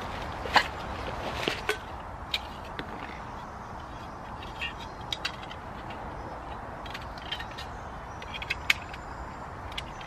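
Small metal camping cook-kit pieces being handled and set down: scattered light clinks and clicks of a pot lid, a Trangia burner and a small folding stove, with some plastic-bag rustling early on, over a steady background hiss.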